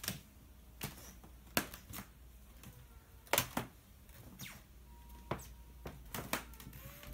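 Quiet footsteps on a hardwood floor with phone-handling noise: a series of light, irregular clicks and taps.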